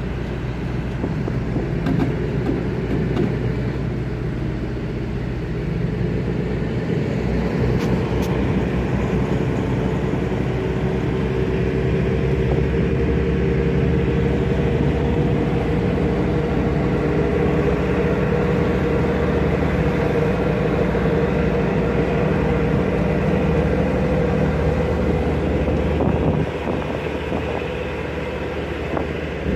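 Tugboat diesel engine running steadily: a loud, low drone with a constant hum. It grows louder about six seconds in and eases briefly near the end.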